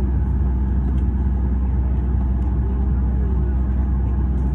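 Steady low rumble of airliner cabin noise: the engines and rushing air heard from inside the cabin.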